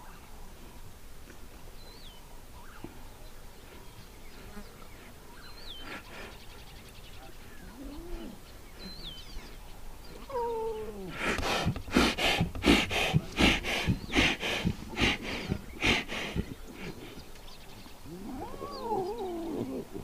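Lion cubs jostling at their mother to suckle. About halfway through comes a loud run of harsh snarls and growls, roughly two a second for some six seconds, and near the end a cub gives wavering mewing calls. Faint short bird chirps come earlier.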